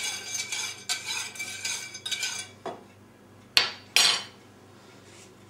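Metal teaspoon stirring yeast in a small mug, with quick clinks and scrapes against the sides for about two and a half seconds. Then come two sharp knocks a little under four seconds in, as the mug and spoon are set down on the counter.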